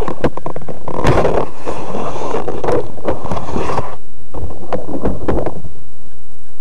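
Close scraping, rubbing and knocking handling noise on the model airplane's onboard minicam microphone, full of sharp clicks, which stops about five and a half seconds in and leaves a steady hiss.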